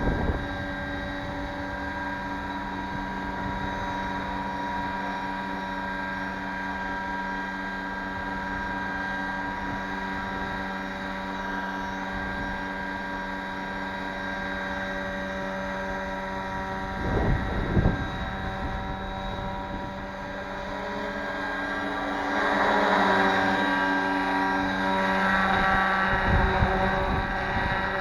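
RC scale model of an AH-6 Little Bird helicopter hovering: its motor and rotor give a steady whine of even tones, with no scale turbine sound switched on. Wind gusts rumble on the microphone about 17 seconds in and again near the end, and the helicopter sounds louder over the last several seconds.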